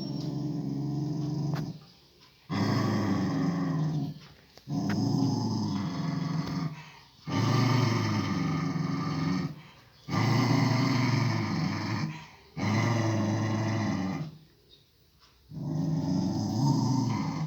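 A pet dog growling in long, low rumbles, about seven of them, each broken by a short breath. It is guarding its food: a warning to the person coming near the bowl.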